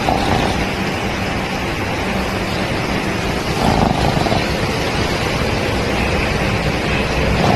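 A sleeping dog snoring, picked up and amplified by a microphone: a steady rumbling hiss with a louder snore about every four seconds, at the start and again halfway through.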